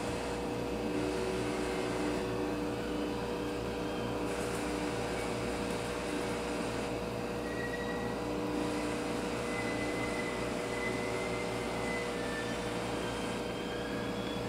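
Aquarium equipment humming steadily with an even hiss, the sound of air pumps and filters running, with a constant low tone under it. Faint thin tones come and go above the hum.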